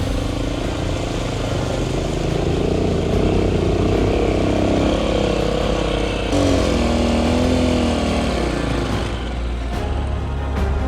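AKT TT DS 200 motorcycle's single-cylinder engine running and revving, its pitch rising and falling repeatedly.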